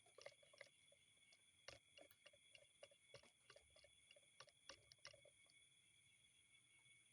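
A faint run of irregular clicks and taps, about twenty in five seconds, stopping about five seconds in, over the steady high electronic whine of the recording device.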